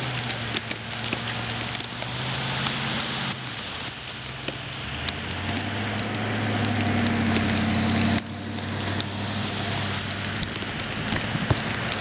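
Vehicles driving slowly past on a snow-covered highway: low engine hum and tyre noise on snow, swelling as one comes closer and dropping off suddenly past the two-thirds mark. Many small crackling ticks run through it.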